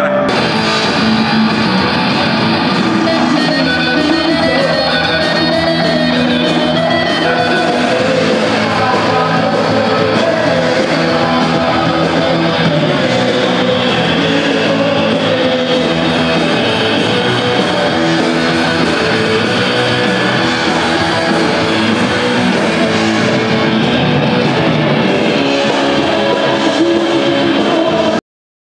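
Live rock band playing loud, with electric guitars over a steady drum beat. The sound cuts out abruptly for a moment just before the end.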